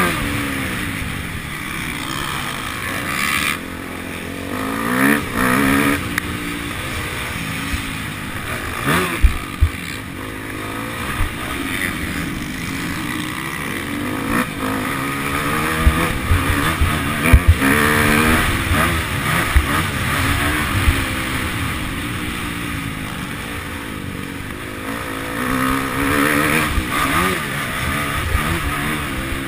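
Motocross bike engine heard from an onboard camera, revving up and falling back again and again as the rider accelerates and shifts around the track, with wind rushing over the microphone. Sharp knocks from the bike hitting bumps come a little before the middle and again past the middle.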